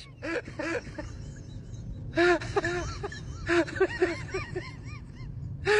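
A person giggling softly in short runs of quick rising-and-falling 'ha' sounds, the clearest run about two seconds in and more around three and a half to four and a half seconds, over a faint low hum.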